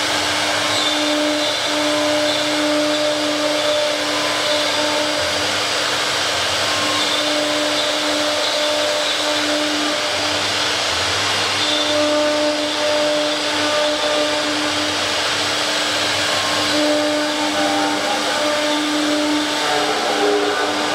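Double-head CNC router running: a steady whine over a loud, even rushing noise that holds throughout with no pauses.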